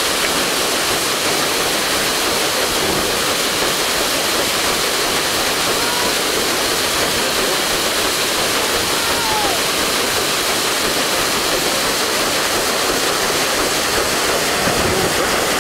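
Paddle wheel of the steamboat Natchez churning the river: a steady rush of splashing, falling water as the paddles beat through it.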